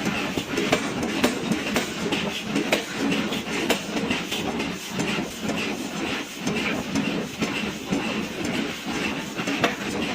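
A 1000 kg pneumatic forging hammer striking a billet in rapid, repeated blows as it draws the stock out to a square section.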